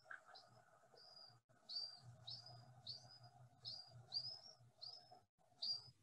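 Young feral pigeon squealing: about ten short, high, faint squeaks, each rising and then levelling off, coming roughly twice a second. This is the quieter squeal of a young pigeon.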